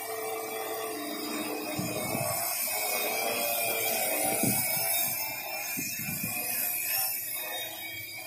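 Quadcopter drone's electric motors and propellers whirring steadily as it hovers, with irregular low rumbles of wind on the microphone.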